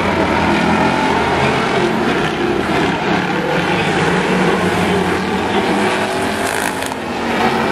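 Engines of several old street cars racing around a paved oval in a demolition race, blending into one steady mix of engine noise.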